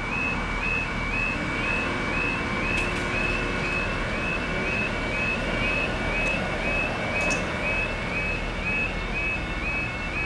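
Level crossing audible warning alarm sounding, a two-tone warble repeating about twice a second, while the barriers lower across the road: the signal that a train is approaching.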